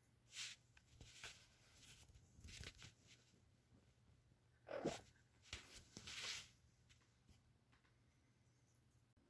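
Near silence with several short, faint rustles, the loudest about five seconds in.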